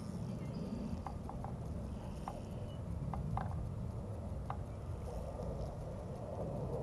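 Wind rumbling over the microphone, with a scattering of faint short clicks in the first two thirds.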